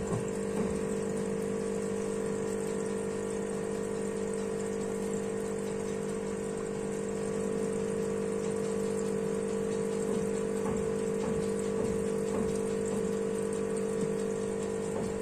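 Aquarium pump humming steadily, with water bubbling at the surface of the tank.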